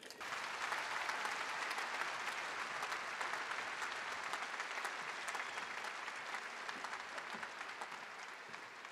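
A large crowd applauding: dense, even clapping that starts at once and slowly fades away.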